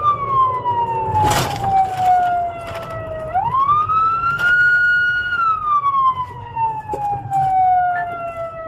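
Police car siren wailing, each cycle rising quickly, holding and then falling slowly over about five seconds, heard from inside the patrol car's cabin over a low rumble of engine and road.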